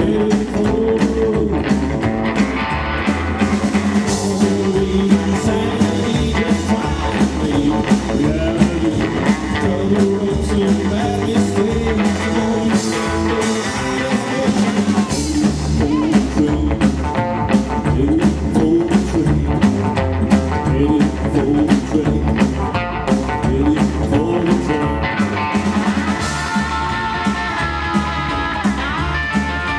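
Rockabilly trio playing live: electric guitar lead over upright double bass and drum kit at a steady driving beat, with no vocals. Near the end the guitar plays sliding notes.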